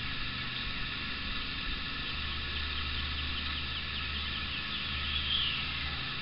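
Steady open-air hiss with a low rumble, and a bird chirping in a quick series about halfway through, with one brighter call near the end.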